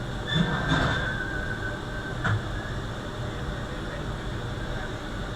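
Industrial lockstitch sewing machine turned over slowly by hand to check the shuttle hook timing: a brief mechanical rattle and scrape about half a second in, then a single sharp click a little over two seconds in, over a steady background hiss.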